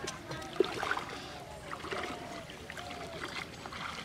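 Water sloshing and splashing around the legs of someone wading thigh-deep, with small irregular splashes.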